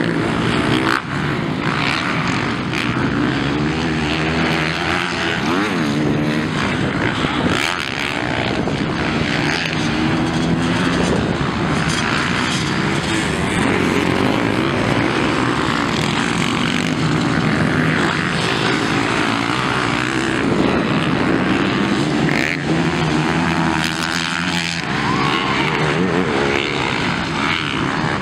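Several motocross bikes racing around a dirt track. Their engines rev up and down, the pitch rising and falling with throttle and gear changes, several engines overlapping throughout.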